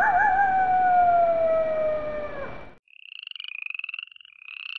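A wolf howls: one long call that wavers at first, then slides slowly down in pitch and stops a little under three seconds in. Then frogs start trilling, high pulsed calls in short bouts.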